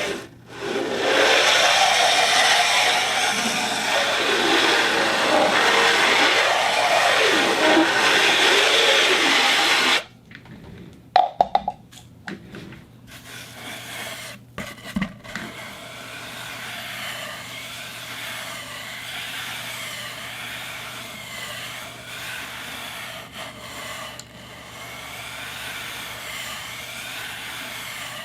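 Turntable running: a loud, rough, steady noise with a slow wavering that cuts off suddenly about ten seconds in. A few clicks and knocks follow, then a quieter running sound that wavers slowly and regularly.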